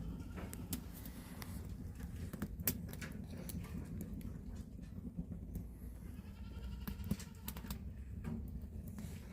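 Cat vocalizing: a steady low purring rumble with faint short mews and scattered light clicks.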